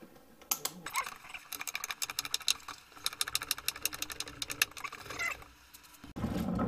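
Rapid, irregular plastic clicking as a strap-and-boot hose adapter is worked and tightened onto the outlet of a Ryobi 40-volt leaf vacuum, lasting about five seconds. Near the end it gives way to a steadier low background hum.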